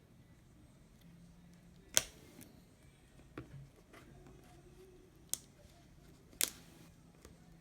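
Sharp clicks and taps of small repair tools against the parts of an iPhone being taken apart: four separate clicks, the loudest about two seconds in, over a faint steady hum.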